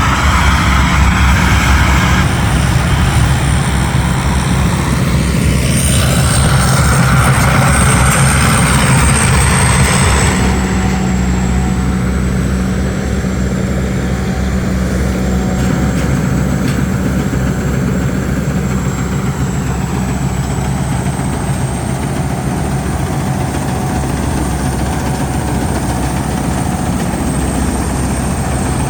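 Diesel engine of a rice combine harvester running steadily under load while harvesting, with a thin high whine above it; somewhat louder for the first ten seconds, then easing a little.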